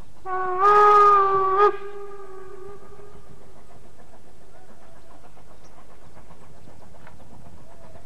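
Steam whistle of a Harz narrow-gauge 2-10-2 tank locomotive: one blast of about a second and a half that stops abruptly and leaves a faint ring-out.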